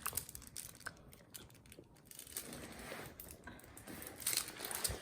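Medicine packaging crinkling and crackling as a pill is torn out of it by hand, in scattered short crackles and clicks, loudest near the end.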